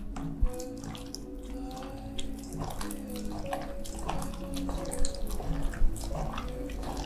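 Hands squishing and kneading chopped raw fish with egg white in a stainless steel bowl: irregular wet squelching, with a few louder squelches.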